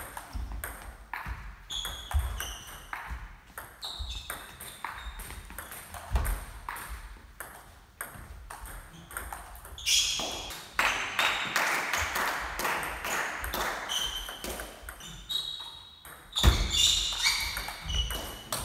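Table tennis balls clicking off bats and the table in rallies, each hit a short sharp tick with a bright ping, in an irregular run throughout. A brief rush of louder noise comes about ten seconds in.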